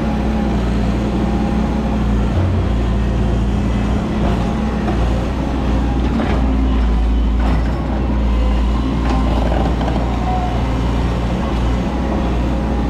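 Heavy diesel engine running steadily with a deep, even hum, with a few short knocks about six and seven and a half seconds in.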